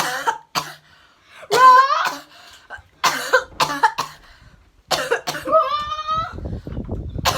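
A woman coughing repeatedly in short hacking bursts, with a few drawn-out, pitch-sliding groans between the coughs and a low rumble near the end: a staged coughing fit faked as coughing up blood.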